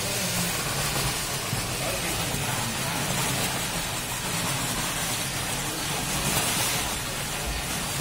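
Muddy water gushing and splashing up out of a borewell, over a steady machine hum.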